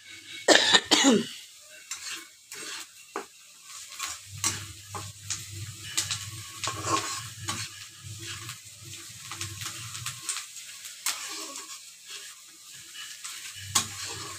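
Spatula stirring and scraping chopped onions frying in hot oil in a metal kadhai, with sizzling and repeated scrapes against the pan. A short loud burst stands out about half a second in.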